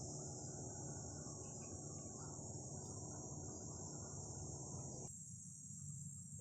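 Insects chirring steadily in one continuous high-pitched band, over a low rumble that drops away about five seconds in.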